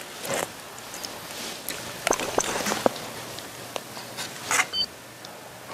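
Noodles slurped and chewed close to a microphone, kept as quiet as possible: a few short sucking and smacking mouth sounds among soft clicks.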